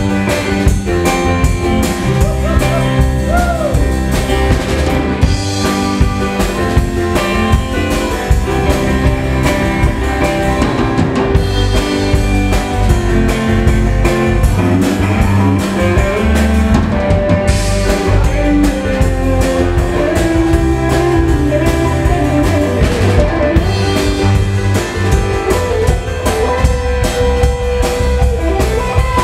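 A live band playing: electric guitar, electric bass, keyboard and drum kit together at a steady loud level, with the drums keeping a continuous beat and some guitar notes bending in pitch.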